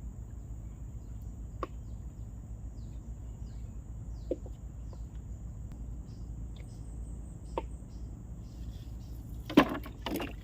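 Outdoor ambience: a steady high-pitched insect drone over a low rumble, with scattered faint ticks and a louder knock and rustle near the end.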